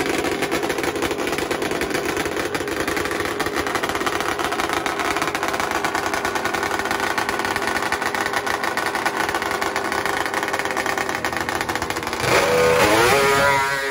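Two-stroke drag snowmobile engine running hard with a dense crackle and a steady pitch. Near the end it gets louder and climbs in pitch.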